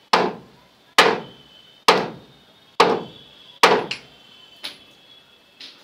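Hand hammer striking the wooden panel-board box as it is fixed into a brick wall recess: five hard blows about a second apart, then two lighter taps near the end.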